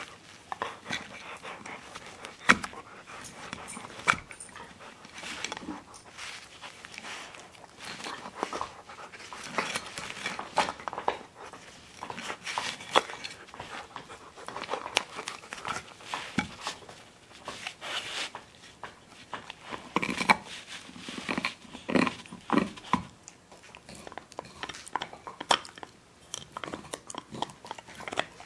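Siberian huskies gnawing on antler chews: teeth scraping and clicking irregularly against the hard antler, with sharp knocks now and then, the loudest about two and a half seconds in and again around twenty seconds in.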